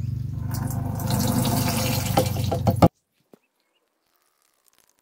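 Dark liquid poured from a plastic bottle into a plastic measuring cup, over a low steady rumble. The sound cuts off abruptly about three seconds in.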